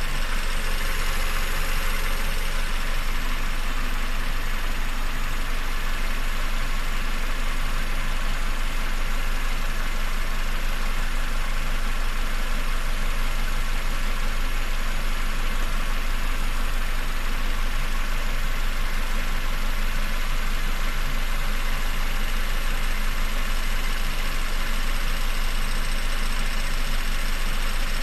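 Peugeot 407's EW10A 2.0-litre four-cylinder petrol engine running steadily, likely at idle, with a constant hum and a dense hiss-like noise over it; the owner counts this among the engine's strange sounds.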